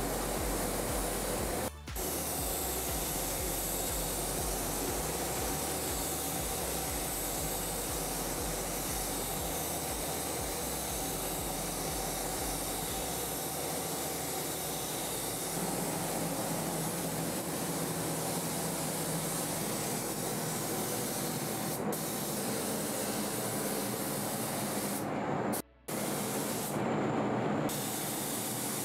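Gravity-feed spray gun hissing steadily as it sprays paint onto car body panels, a continuous rush of compressed air. The sound breaks off briefly about two seconds in and again near the end.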